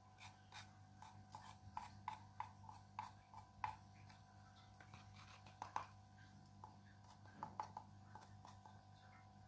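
Steel spoon clicking and scraping against a clay pot as thick ceramic paste is spread on it, about three light clicks a second for the first few seconds, then a few scattered clicks later on.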